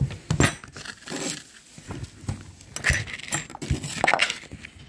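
Knife slicing through kinetic sand and tapping and scraping on a plastic cutting board, in an irregular run of clicks and scrapes.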